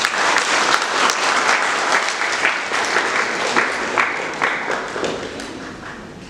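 Audience applauding, many hands clapping together, fading out near the end.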